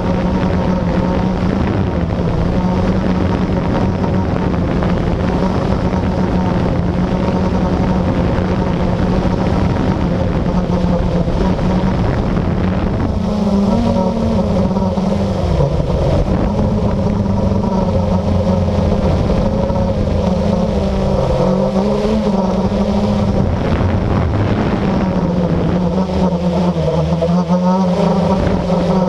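Blade 350QX quadcopter's electric motors and propellers buzzing close by in flight. The hum holds a steady pitch at first, then wavers up and down from about halfway through as the motor speeds change.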